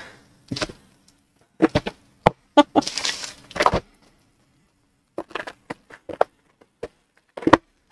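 Plastic bubble mailer being handled and turned over, crinkling and rustling in several short bursts with quiet gaps between them.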